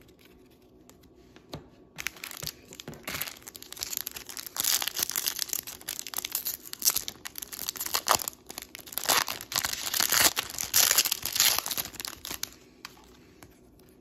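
Foil wrapper of a Star Wars trading-card pack being torn open and crinkled. The rustling starts about two seconds in and stops near the end.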